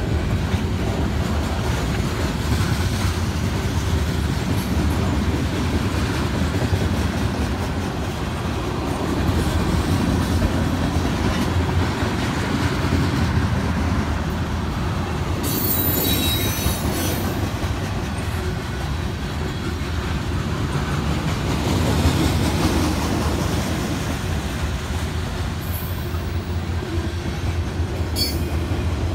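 A CSX mixed freight train's cars (tank cars, boxcars and covered hoppers) rolling steadily past: a continuous rumble and rattle of steel wheels on the rails, with a brief high screech about halfway through.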